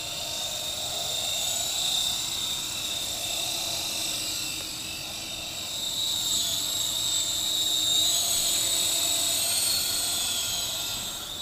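SkyKing HCW8500 remote-control helicopter flying, its motor and rotor giving a high, steady whine that wavers slightly in pitch and swells and eases in loudness as it moves.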